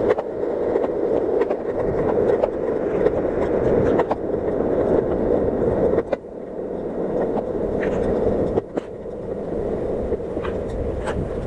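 Skateboard wheels rolling on rough pavement: a steady rumble, broken by a few sharp clicks as the wheels cross cracks and joints. The rumble eases off a little about two-thirds of the way through.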